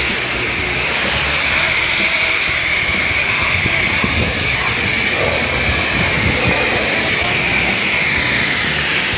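A steady, loud hiss with a slightly wavering high pitch, like air or liquid being forced out under pressure.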